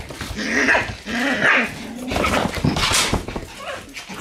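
Shiba Inu puppies yipping and barking, several short high bursts in quick succession.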